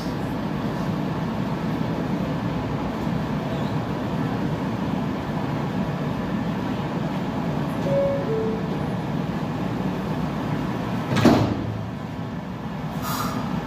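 A stopped New York City subway train hums steadily at the platform. About eight seconds in, the two-note door chime sounds, falling in pitch. A few seconds later the sliding doors close with a loud thump, and a short hiss follows near the end.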